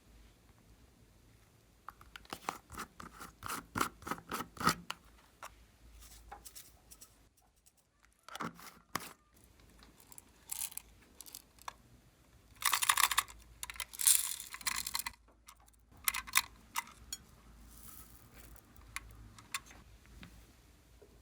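Close-up hand sounds of slime being worked and mixed: irregular bursts of crackling, clicking and crinkling, the loudest cluster about two-thirds of the way through.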